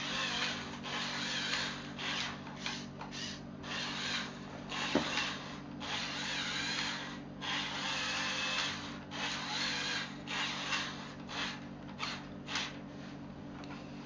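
Lego Technic remote-control truck's small electric motors and plastic gears whirring in repeated spells of about a second, starting and stopping, over a steady low hum.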